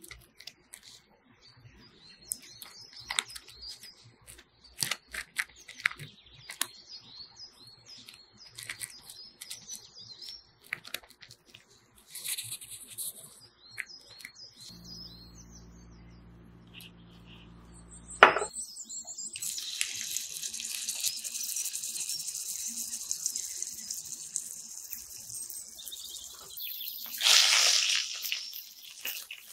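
Gloved hands pat and press a fish-mixture patty on a plastic sheet, giving soft taps and plastic crinkling. After a sharp click about 18 seconds in, a fish patty shallow-frying in hot oil sizzles steadily, and the sizzle surges louder near the end as the patty is turned with a spatula.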